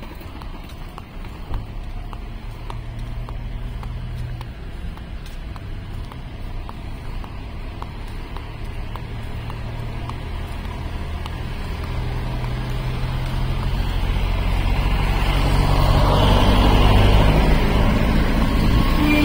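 Road traffic: a motor vehicle engine running with a steady low hum and a light ticking about twice a second early on. It grows louder over the last few seconds as traffic comes close.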